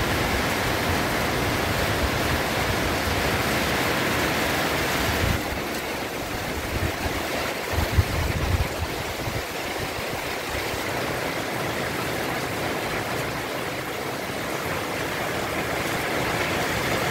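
Heavy rain drumming on corrugated metal roofing sheets: a steady rushing noise that eases a little about five seconds in, with a few low thumps around eight seconds.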